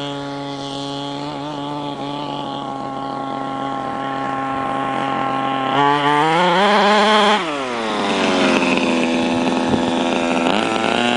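Two-stroke petrol engine of a large-scale RC buggy running at steady revs, its pitch creeping up. About six seconds in it is opened to full throttle for about a second and a half, then falls back to steady mid revs as the throttle is released.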